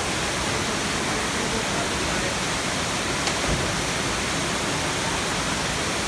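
Küp waterfall's falling water rushing: a steady, even roar of noise.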